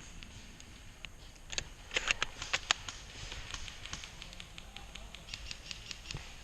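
Scattered sharp clicks and pops of airsoft gunfire across the field, bunched in a quick flurry about two seconds in and then coming singly and in short runs.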